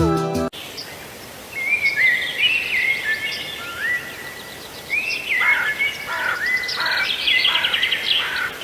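Birds chirping and singing over a steady outdoor background hiss: many short whistled notes that rise and arch, growing busier in the second half. A bit of music cuts off about half a second in.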